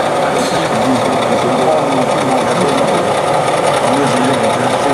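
Model train running on a layout, its small electric motor whirring steadily under the murmur of an exhibition-hall crowd.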